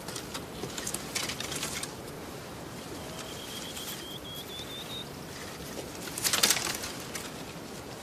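Wildlife ambience: crackling rustles in vegetation, a short run of high chirping notes rising slightly in pitch in the middle, and a louder rustling burst about six seconds in.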